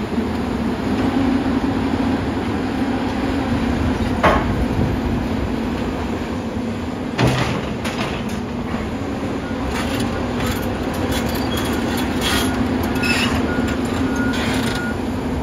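Volvo EC480EL excavator's diesel engine running steadily as it works demolition rubble, with a crash of debris about four seconds in and a heavier thump about seven seconds in. Then come repeated clatters of broken concrete and metal. A backup alarm beeps faintly near the end.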